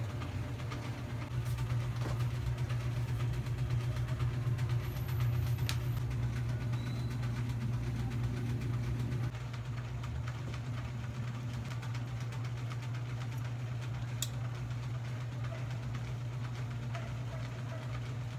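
A steady low motor hum, a little quieter from about halfway through.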